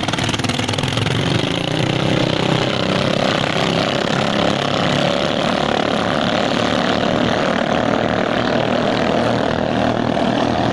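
Ketinting longtail racing boat engines running at high revs in one steady drone.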